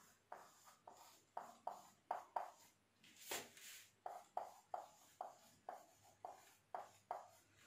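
Faint squeak and scratch of a dry-erase marker on a whiteboard as a word is written, in quick short strokes at about two or three a second. There is one broader rustle a little over three seconds in.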